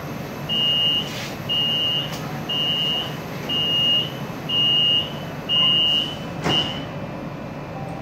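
Door-closing warning beeper on an electric commuter train: seven high, even beeps about once a second, the last one short, while the passenger doors close, with a thump near the end of the beeping. The car's steady low hum runs underneath.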